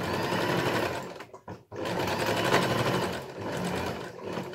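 Janome sewing machine running with its buttonhole foot, stitching the dense zigzag of a buttonhole; it stops briefly just over a second in, then starts up again.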